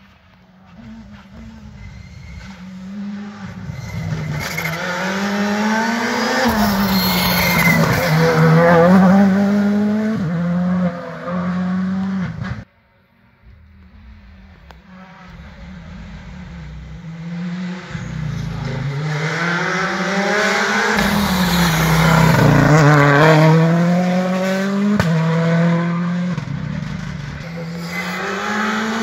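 Rally car engines heard approaching up a twisty stage, revs rising and falling over and over with the gear changes and braking, growing louder as each car nears. The sound cuts off sharply about halfway through, then builds again as a Škoda Fabia rally car climbs toward the hairpin, arriving near the end.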